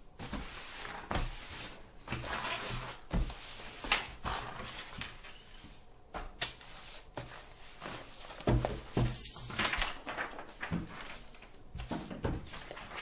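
Books, magazines and papers being pushed and swept across a wooden desk by hand: irregular thuds and knocks with paper rustling and sliding, the heaviest thuds about four and eight and a half seconds in.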